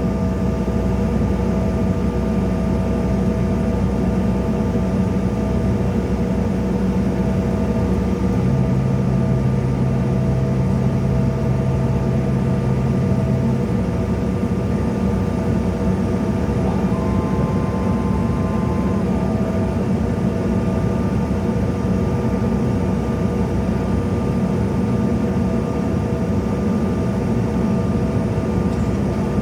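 Cabin noise of a CRJ-700 with its rear-mounted GE CF34 jet engines running steadily: a low rumble with a steady whine on top. A low hum comes in for about five seconds near the middle.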